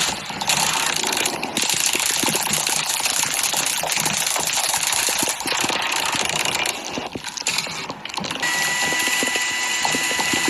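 Loud, continuous clattering noise made of many rapid clicks. A steady high-pitched tone at two pitches comes in about eight seconds in and holds.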